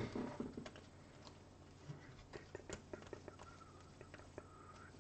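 Faint, scattered clicks and soft rustles of trading cards being leafed through by hand, with a faint thin wavering tone near the end.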